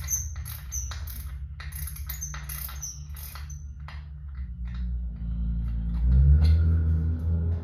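Small metal hardware clinking against a wooden part as it is handled: a quick run of light metallic clicks, thinning out after about four seconds. From about six seconds a low steady hum grows louder.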